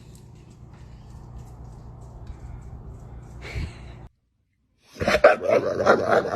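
Faint steady hum with one short breathy noise about three and a half seconds in. After a brief silence, a dog barks and yips loudly in quick succession.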